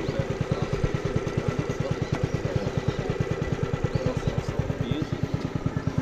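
A small engine running steadily with an even low putter, about ten beats a second.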